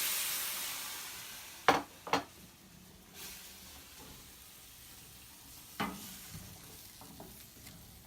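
Vegetables and beans sizzling in a frying pan just after chicken broth has been poured in, the sizzle dying away over the first couple of seconds. A utensil then knocks against the pan twice, and once more a few seconds later.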